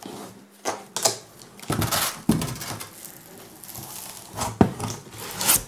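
Cardboard box flaps being pulled open and handled: irregular scraping and rustling of cardboard with a few sharp knocks.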